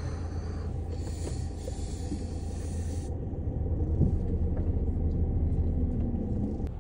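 Steady low rumble of a car's running engine heard from inside the cabin, with a hiss over it that cuts off suddenly about three seconds in.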